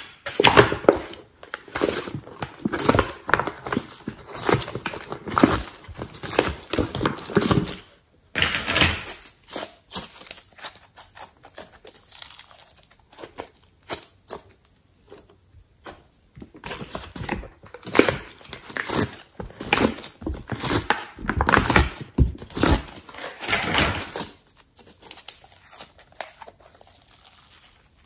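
Thick slime being squeezed, folded and stretched by hand, making dense wet crackling with small pops. It is busiest for the first several seconds and again from about two-thirds of the way in, with softer handling in between.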